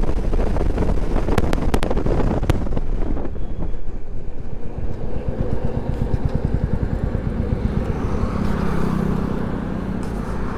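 Motorcycle engine running under way, heard from the rider's seat. Near the end it eases off and gets quieter as the bike slows toward the roadside.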